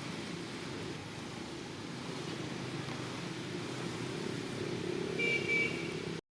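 Steady low rumble of motor traffic, with a brief high chirp about five seconds in, then cuts off suddenly.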